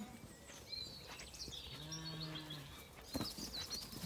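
A Zwartbles sheep bleating once, a single low, steady bleat about two seconds in. Small birds chirp faintly throughout.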